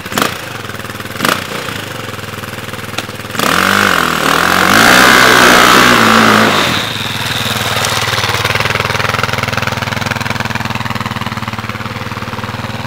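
KTM 530 single-cylinder four-stroke dirt bike engine idling, with a couple of sharp clicks in the first second or so. About three and a half seconds in it revs hard and loud as the bike pulls away with its rear wheel spinning in loose dirt. It then settles into a steadier, quieter running note.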